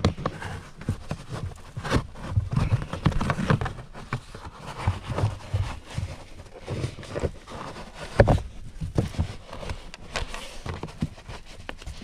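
Car floor carpet being tugged and peeled back from the footwell by hand: irregular rustling and scraping with dull thumps, the loudest thump about eight seconds in.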